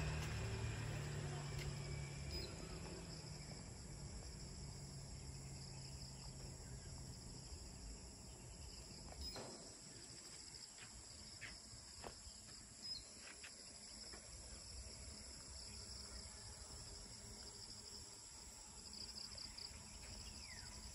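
Steady high, shrill chorus of insects, with a vehicle's engine hum fading away over the first several seconds and a few faint clicks in the middle.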